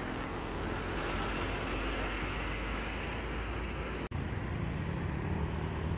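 City road traffic, with a bus and cars passing close by: a steady rumble of engines and tyres. The sound cuts out for an instant about four seconds in.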